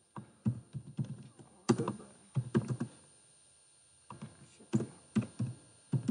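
Keystrokes on a computer keyboard: two bursts of quick typing, with a pause of about a second in between.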